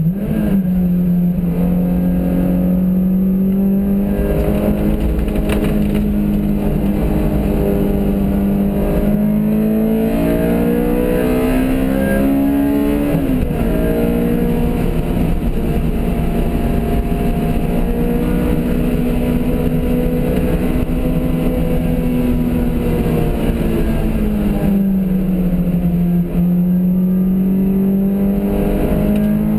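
Car engine under load on a race track, heard from inside the cabin over a steady low road rumble. Its pitch climbs slowly, drops sharply about halfway through and holds, then sinks a few seconds before the end and starts climbing again.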